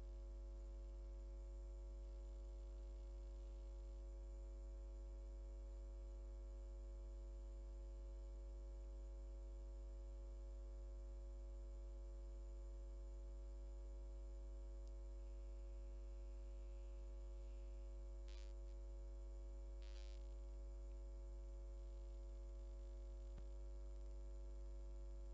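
Low, steady electrical mains hum, broken only by two faint short clicks about three-quarters of the way through.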